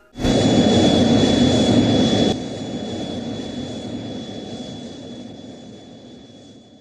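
A jet-like rushing roar that starts suddenly, stays loud for about two seconds, then drops and slowly fades away, with a thin steady high whine running through it.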